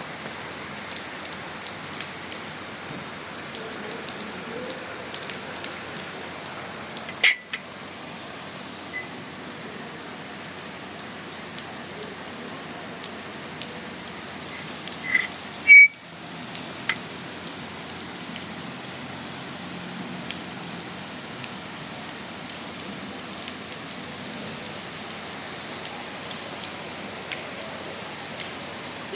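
Steady rain falling and pattering on surfaces. Two brief sharp knocks cut through it, about seven and sixteen seconds in, the second the loudest.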